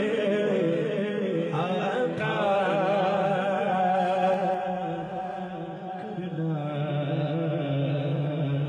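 A man's voice chanting a devotional Urdu naat melody with a wavering, ornamented pitch. It is sung over a steady low drone that grows stronger in the second half.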